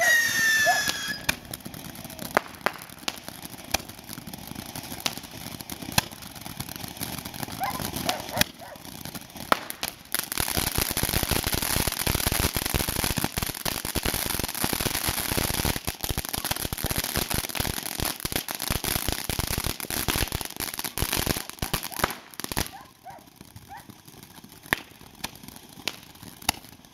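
A TNT Oblivion consumer fireworks fountain firing: a falling whistle in the first second, then many sharp pops that thicken into a dense, continuous crackle and hiss from about ten seconds in until about twenty-two seconds, after which it thins back to scattered pops.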